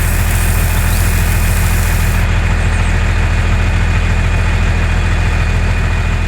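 Small engine running steadily at idle with a low, even pulsing hum; a high hiss over it stops about two seconds in.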